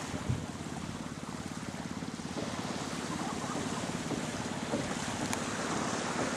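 Steady wind on the microphone and small sea waves washing on a sandy beach, with a faint low steady hum underneath.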